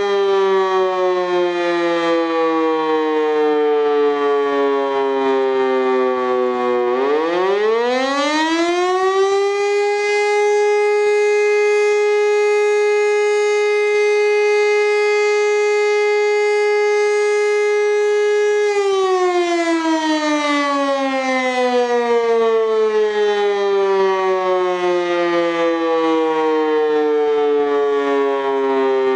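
E57 electromechanical civil defence siren sounding the fire alarm signal in a test. It is still winding down from the previous blast, starts up again about seven seconds in and climbs within a couple of seconds to a steady high wail. It holds that for about nine seconds, then is switched off and slowly falls in pitch as the rotor coasts down.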